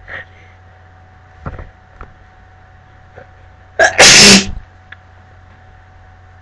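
A woman sneezes once, loudly, about four seconds in, with a short voiced 'ah' run-up just before it. It is an allergic sneeze brought on by a cat allergy.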